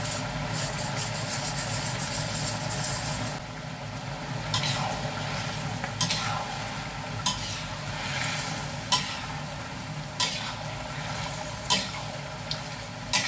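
Metal spatula stirring a simmering sauce in a steel wok over the steady sizzle and bubble of the pan, with sharp metal-on-metal clinks about every second and a half. Cornstarch slurry is going in, thickening the sauce.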